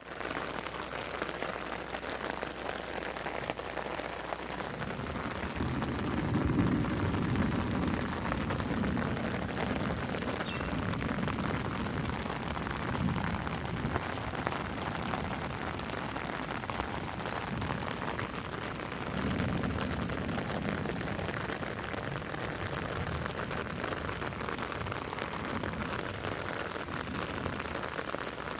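Steady rain falling and pattering on surfaces, an even hiss throughout. A low rumble swells up twice, about five seconds in for several seconds and again near the twenty-second mark.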